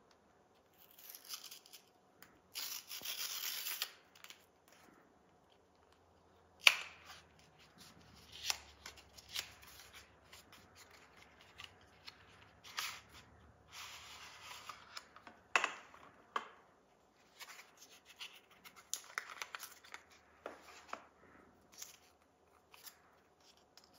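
Cardboard box and packing of a pair of earbuds being opened by hand: the box scraping as it slides apart, then sharp clicks, taps and rustling as the inner tray is lifted out and a paper wrapper is peeled off the plastic charging case.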